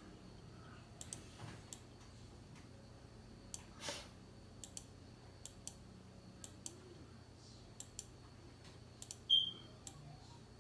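Computer mouse clicking now and then, single clicks spread out irregularly, a few more together about four seconds in. A short high beep sounds about nine seconds in, over a faint steady low hum.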